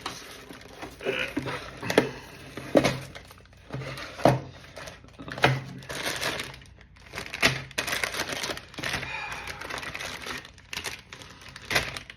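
Packaging being handled and opened: irregular crinkling and tearing of wrapping, with sharp clicks and knocks of cardboard and parts being set down.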